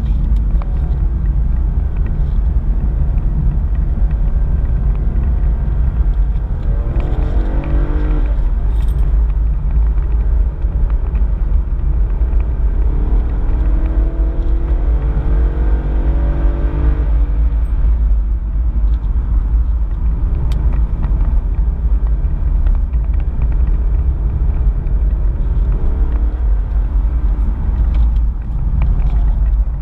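The VFII Commodore Motorsport Edition's 6.2-litre V8 and its road rumble, heard from inside the cabin under hard track driving. The engine note rises as it pulls hard about 7 seconds in, and again from about 13 to 17 seconds.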